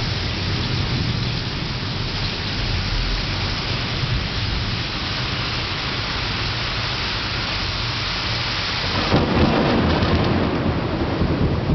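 Steady rain pouring, with thunder rumbling low underneath. About nine seconds in, the thunder swells louder for a couple of seconds.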